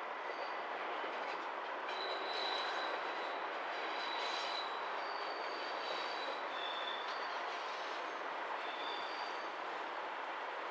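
Class 97/3 (ex-Class 37) diesel locomotive approaching slowly with its test train, engine running under a steady broad noise. Thin high-pitched wheel squeals come and go from about two seconds in.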